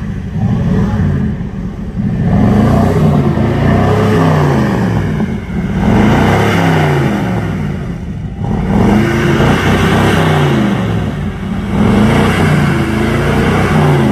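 Ford Econoline van's engine being revved in about four bursts, its pitch sweeping up and down a few times in each.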